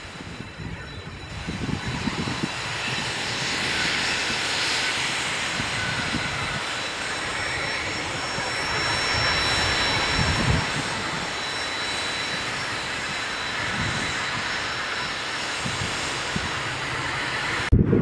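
Small twin-engine business jet's rear-mounted turbofans running as it moves along the runway: a steady jet rush with a thin high whine, building about two seconds in. The sound cuts off abruptly just before the end.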